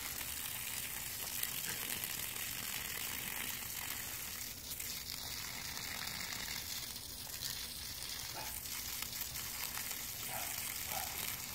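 Steady hiss of a garden hose's water stream spraying and splattering onto grass.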